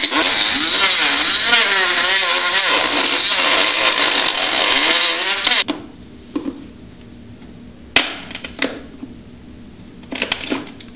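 Handheld rotary tool grinding through hardened resin on a fiberglass helmet, its whine wavering in pitch as the bit bites and eases. It cuts off about six seconds in, and a few scrapes and sharp knocks follow as a hand tool picks at the cured resin.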